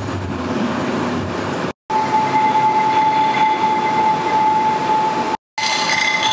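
Electronic performance soundscape: a dense, loud rumbling noise drone with a steady high tone held over it from about two seconds in. Two brief dead silences break it, and chiming pitched tones enter near the end.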